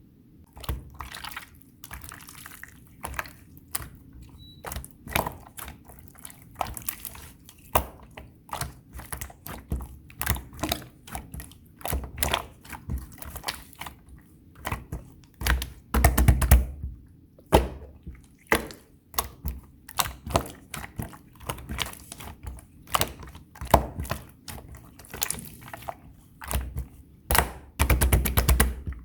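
Clear slime being played with, giving a steady run of wet clicks and pops, with two louder, denser runs of crackling about halfway and near the end.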